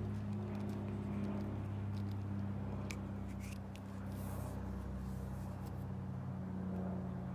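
A steady low mechanical hum, like a motor or machine running in the background. A couple of light clicks about three seconds in come from the black end cap being fitted onto the tips of metal crucible tongs.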